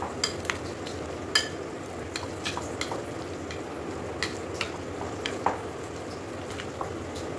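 Steel spoon stirring thick besan pakora batter with sliced onion and spinach in a glass bowl, the spoon clinking sharply and irregularly against the glass over a steady wet scraping of the batter.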